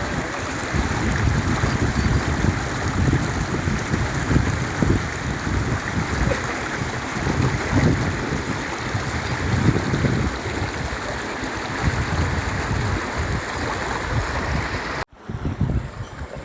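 Wind buffeting the microphone in irregular low gusts over a steady rushing noise outdoors. The sound cuts off abruptly about fifteen seconds in and comes back quieter, still gusty.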